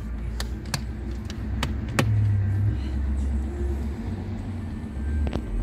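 About five sharp clicks and knocks as a rubber bypass hose is handled and fitted to the engine's air intake, the loudest about two seconds in, over a steady low rumble.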